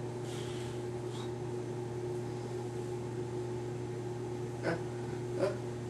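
Steady low background hum with a faint constant tone above it. Two short soft clicks come about a second before the end, less than a second apart.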